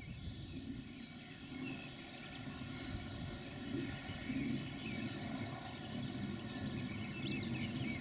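A distant, steady low engine rumble with birds chirping over it; the chirps grow busier near the end.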